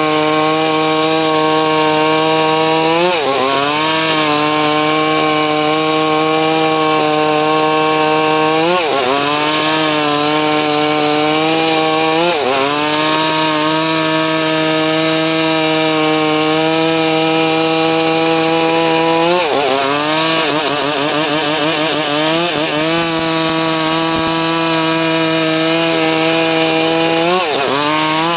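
Engine of a homemade srekel saw running steadily while sawing mahogany, its pitch dipping briefly about five times as the cut loads it down, then recovering.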